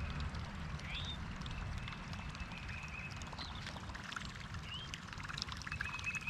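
Moving creek water with songbirds calling over it: short trills of repeated high notes, and two quick rising chirps.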